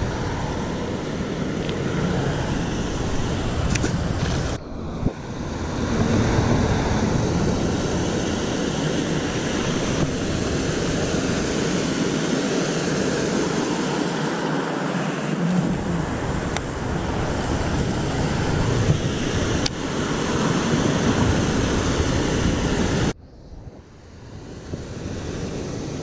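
Water pouring over a concrete canal spillway weir, a steady rushing noise, with wind on the microphone. The sound cuts off abruptly about two-thirds of the way through and comes back quieter.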